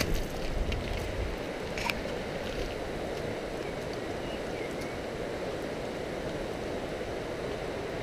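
Steady rushing of a mountain river running over a wide stony gravel bed. Some low wind rumble on the microphone in the first second, and a small click about two seconds in.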